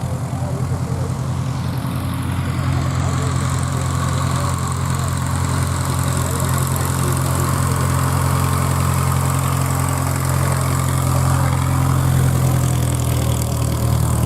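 Light aircraft's piston engine and propeller running steadily at low power while taxiing, growing slowly louder.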